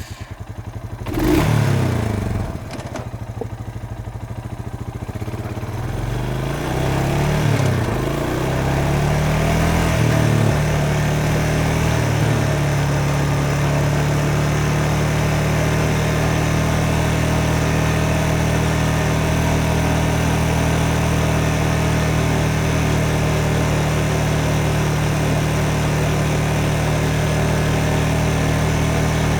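Lawnmower engine running. It surges about a second in, its pitch rises and falls for roughly the first ten seconds, then it settles into a steady, even run.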